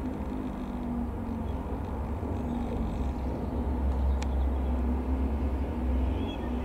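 AgustaWestland AW109SP Grand New twin-engine helicopter flying past at a distance, heard as a steady low drone. A bird chirps faintly near the end.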